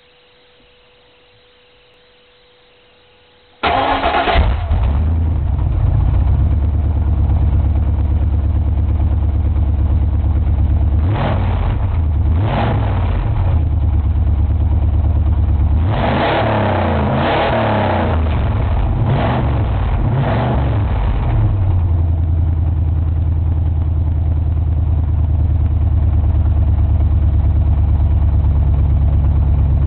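A 1997 Ford Explorer's 5.0-litre (302) V8 starts about three and a half seconds in and idles loudly through an exhaust with no mufflers, only its four catalytic converters. It is revved twice briefly, then several times in a row, and settles back to a steady idle.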